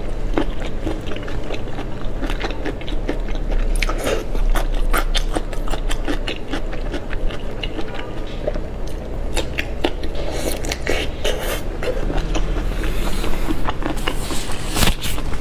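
Close-miked mouth sounds of a person biting and chewing peeled shrimp coated in chili sauce: a steady run of wet clicks and smacks. Near the end comes a rustle, as of a thin plastic glove being pulled off.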